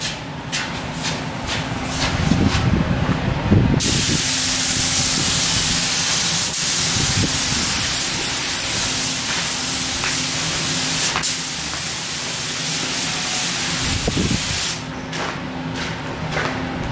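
Compressed-air paint spray gun spraying automotive paint on a car body: a steady, loud hiss that starts about four seconds in and cuts off a couple of seconds before the end. A low steady hum runs underneath, with a few knocks and handling sounds before the spraying begins.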